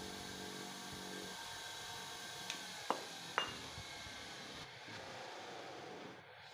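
Bench buffing machine running, its motor spinning the buffing wheels with a steady whir. A low hum drops away about a second in, and a few sharp clicks come around the middle.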